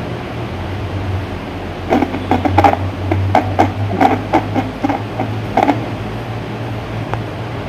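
Steady low hum and room noise, with a quick irregular run of soft taps from about two seconds in until nearly six seconds.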